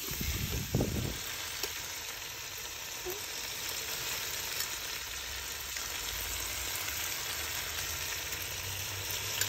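Chopped tomatoes and meat frying in a stone-coated pan, a steady sizzle. A wooden spoon stirs and knocks in the pan for about the first second.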